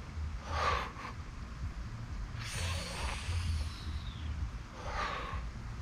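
A man breathing out hard three times, about two seconds apart, while straining through a set of bodyweight reps.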